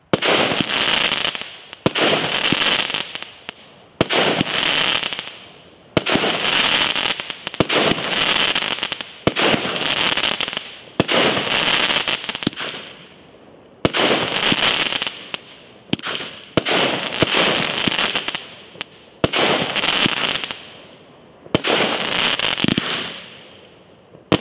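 A Legend Fireworks Pirate Queen 16-shot 200-gram cake firing shot after shot, about one every two seconds. Each shot is a sharp bang followed by a crackling, hissing break that fades away before the next.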